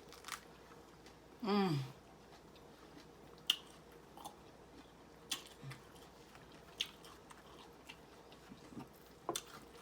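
Close-up biting and chewing of a lettuce wrap: quiet mouth sounds punctuated by a few short, sharp crunches a second or two apart.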